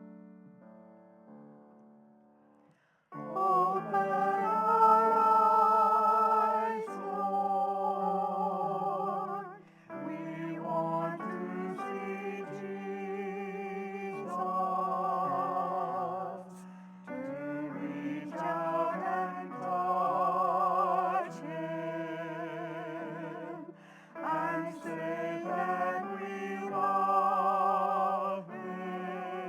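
Hymn singing: a voice with strong vibrato over piano accompaniment. A quiet piano chord opens, and the singing comes in about three seconds in.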